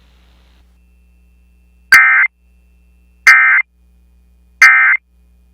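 Three short bursts of Emergency Alert System end-of-message data (the SAME digital 'NNNN' code), a harsh two-tone warble, about 1.3 s apart and each about a third of a second long. They signal the end of the alert message.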